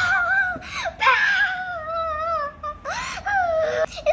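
A child's high-pitched wordless vocalising: long, wavering, whiny voice sounds that rise and fall in pitch, with a few short breaks.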